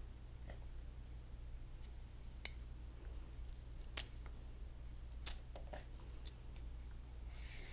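Strawberries being eaten: scattered small clicks and smacks of chewing, the sharpest about four seconds in and a quick cluster a little after five seconds, over a steady low hum.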